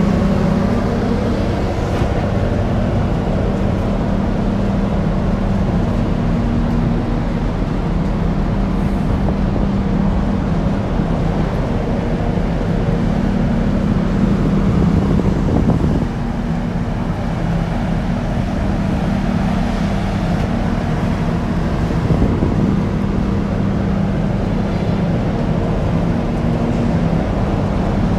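Deep, steady machinery drone of a large ship's engine, holding one low hum throughout, with wind rumbling on the microphone.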